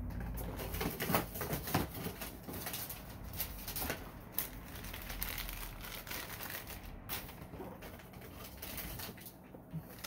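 Newspaper packing rustling and crinkling as items are handled and unwrapped from a box, a run of irregular crackles and rustles.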